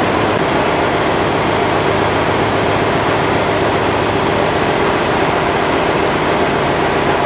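Fire engine's engine and water pump running steadily, a constant loud drone with hiss, while its hose sprays water.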